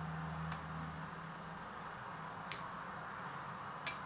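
Three small sharp clicks of metal tweezers against an opened smartphone's frame and circuit board as a tight, glued-in part is worked loose, over a low hum that fades about a second in.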